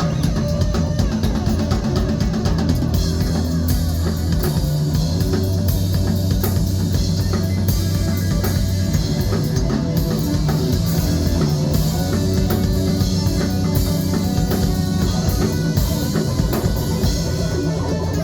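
Rock band playing live, drum kit and guitar over a heavy low end, loud and continuous.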